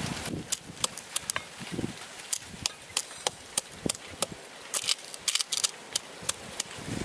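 Wooden pestle pounding spice paste in a coconut-shell mortar with a couple of dull thuds, while a knife chops chilies on a wooden board with many sharp, irregular taps.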